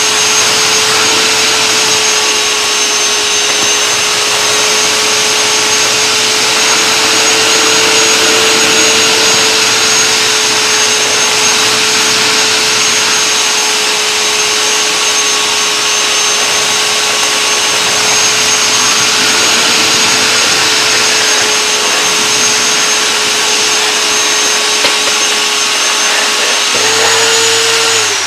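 Battery-powered Ryobi One+ 18V shop vac running as a wet vac with its filter out, sucking water off a concrete floor: a steady motor whine over loud airflow hiss. Near the end its pitch rises slightly, and then it stops.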